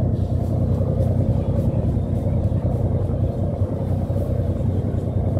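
A tour boat's engine running steadily under way, a constant low drone.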